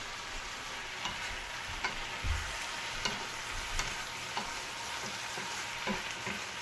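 Beef cubes, onion, tomato and green chili sizzling in a frying pan, stirred with a wooden spatula that scrapes and taps against the pan about once a second over a steady frying hiss.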